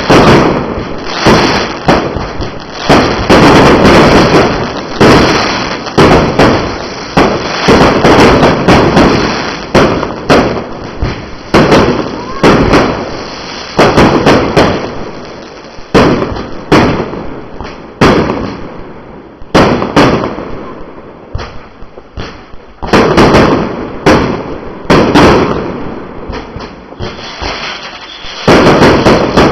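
Fireworks going off in quick succession: a long run of loud bangs, each trailing off in echo, with a few brief lulls.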